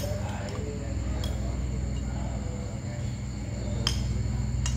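Steady low background hum with faint voices and a few sharp clicks. The two strongest clicks come near the end.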